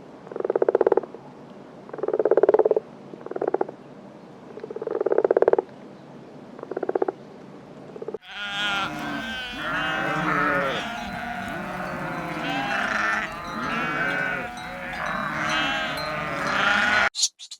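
Farm animals calling: about six separate calls from one animal in the first half, then a sudden cut to a dense chorus of many animals calling over one another.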